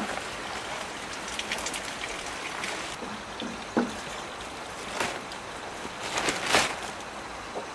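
Steady heavy rain falling, an even hiss, with a few scattered knocks over it; the loudest is a short rustling burst about two-thirds of the way through.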